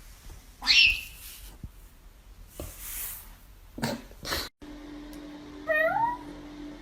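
A few short scuffing and hissing noises, then a brief dropout. After that, a cat meows once near the end over a steady low hum.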